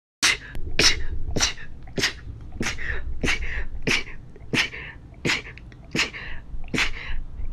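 A young woman in a rapid sneezing fit: about a dozen short, sharp sneezes in quick succession, roughly one every two-thirds of a second, starting suddenly after a moment of silence.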